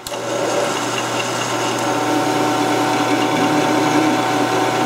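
Metal lathe switching on and running steadily, a motor-and-gear whine with several fixed tones, as its chuck spins an AK rifle barrel ready to be turned down.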